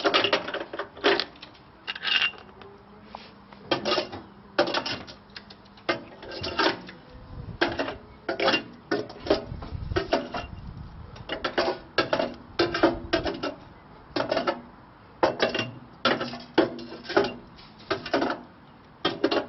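Pieces of shattered obsidian clinking and clattering against a hard dish as they are moved and lifted out with a tool, in irregular sharp knocks about one or two a second.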